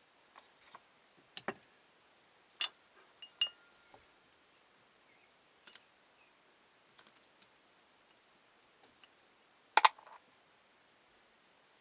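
Scattered small clicks and taps of carburetor parts being handled during disassembly on a workbench, with a sharper double click near the end.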